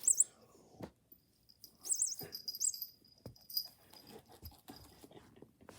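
A cat making short, high, wavering squeaky cries, twice, amid rustling and a few light knocks.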